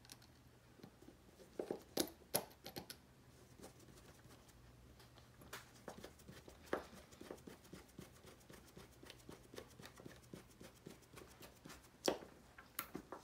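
Faint clicks and light ticks of a hex driver and small metal parts against the plastic shifter housing as a screw and washer are driven into the lever knob, with a run of fine ticking in the middle and a sharper click near the end.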